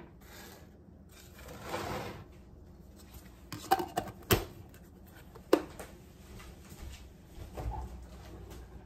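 Scattered light clicks and knocks with a short rustle: things being handled and moved about on a kitchen counter, with no single steady sound.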